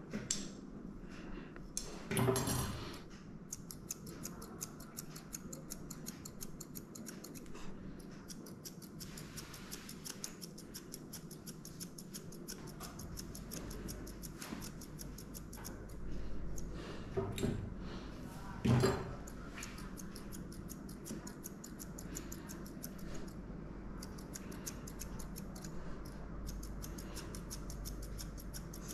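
Grooming scissors snipping through a schnauzer's face and head fur in quick, steady runs of cuts, several snips a second. A couple of louder thumps stand out, about two seconds in and about two-thirds of the way through.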